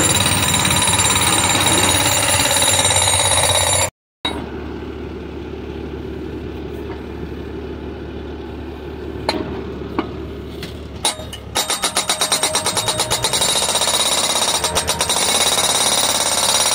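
Engine-driven machinery running steadily, then, about two-thirds of the way through, rapid repeated pounding at about two to three strokes a second: a post driver driving a vineyard post.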